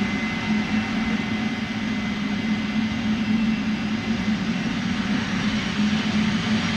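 Jet airplane engine sound running steadily: a constant low hum under an even rushing hiss.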